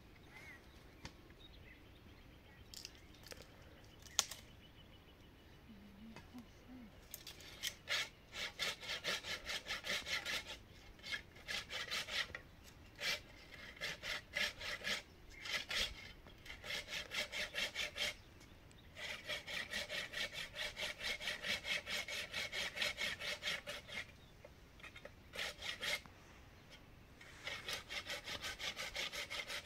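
Hand saw cutting through wood in fast back-and-forth strokes, about four a second, in several runs with short pauses between. The sawing starts about a quarter of the way in, after a quiet stretch with a few light knocks.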